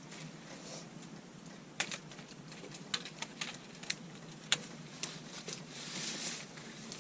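Scattered light clicks and taps, irregularly spaced, with a brief rustle near the end, from small objects being handled.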